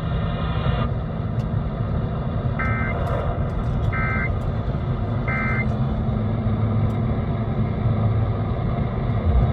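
Emergency Alert System end-of-message signal heard over AM radio: three short, buzzy data bursts about 1.3 seconds apart, marking the end of the alert. A steady low rumble runs under them.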